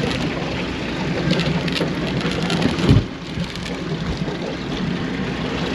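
Boat engine running under a steady rush of wind and water noise, with one heavy thump about three seconds in.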